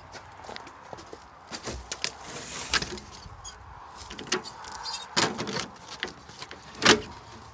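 Irregular knocks, clatter and short scrapes of handling gear, with one loud sharp knock about seven seconds in.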